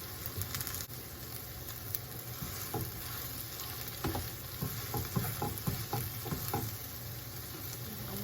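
Green bean and egg omelet sizzling steadily in a frying pan on high heat, with a quick run of short knocks about halfway through.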